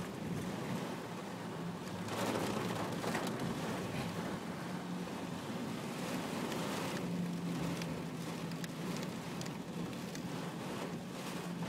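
Car cabin on the move through flooded streets: a steady engine-and-road hum under a rushing noise of rain and water, which swells twice, about two seconds in and again around six to seven seconds.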